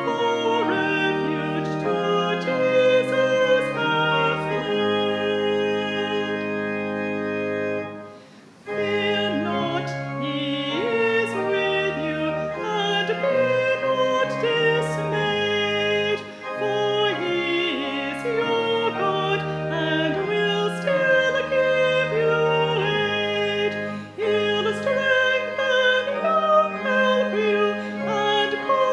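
A hymn sung with keyboard accompaniment: voices holding slow sustained notes over steady bass notes, with a brief pause between lines about eight seconds in.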